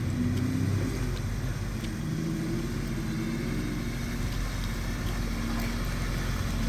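Toyota FJ Cruiser's V6 engine running steadily at low speed as the truck pushes through a muddy water hole.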